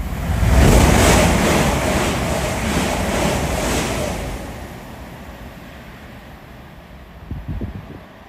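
A train passing close by on the adjacent line: a rush of air and rolling noise that swells quickly in the first second, then fades over about four seconds, with wind buffeting the microphone. A brief low thump of noise near the end.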